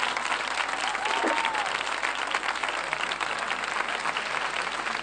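Large crowd applauding steadily, with one voice calling out briefly about a second in.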